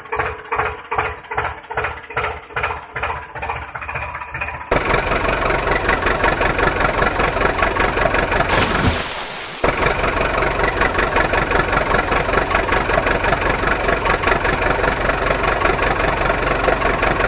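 Engine running with a slow, even chug of about two beats a second, then much louder and faster from about five seconds in. Just before nine seconds a brief hiss-like sweep of about a second cuts in before the steady running resumes.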